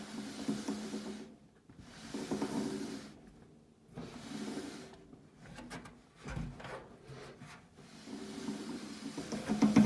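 Whirlpool dryer drive parts, the idler pulley or the motor, turned by hand in a noise check, giving a rubbing, rasping sound in uneven bursts with short pauses between them.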